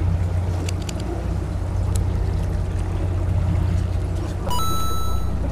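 Fishing boat's engine running with a steady low drone. A few light clicks come in the first two seconds, and near the end a steady high tone sounds for about a second.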